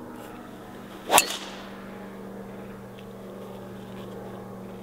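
A golf club striking the ball on a tee shot: a single sharp crack about a second in, over a steady low hum.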